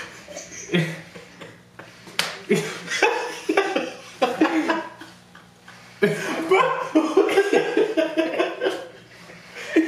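Two men laughing hard in waves, loudest from about six seconds in, with a few sharp smacks among the laughter.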